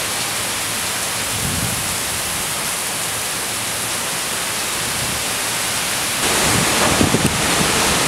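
Heavy rain pouring in a thunderstorm, growing suddenly louder about six seconds in.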